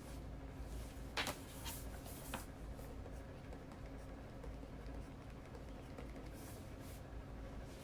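Desk sounds of writing on paper: a few short scratchy strokes and taps about a second in, and a softer brushing stroke near the end, over a low steady room hum.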